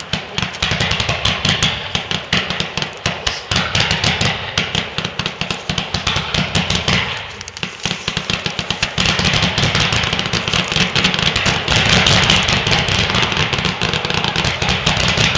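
A 253-shot firework cake firing in rapid succession: a dense, continuous stream of launch pops, many per second, with a brief lull about halfway through before the barrage picks up again.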